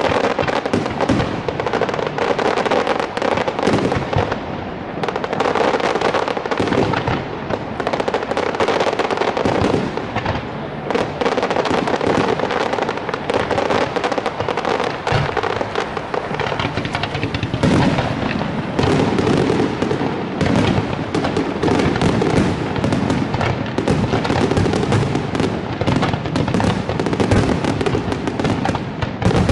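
Aerial fireworks display: a dense, unbroken barrage of shell bursts and crackling.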